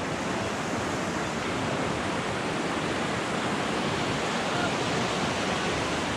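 A fast mountain river rushing steadily over rocks and rapids.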